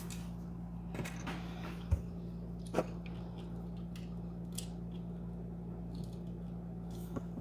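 Small clicks and taps of tools on printed plastic extruder parts as a screw is worked into its hole, with a dull knock about two seconds in, over a steady low hum.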